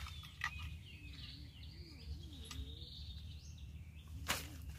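Birds chirping and calling in the background over a steady low outdoor rumble, with two sharp clicks, one near the start and a louder one near the end.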